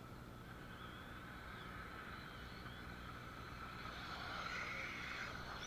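Battery-powered hobby-grade RC cars running at speed, their electric motors and drivetrains giving a steady high whine that grows louder around four to five seconds in as they come closer.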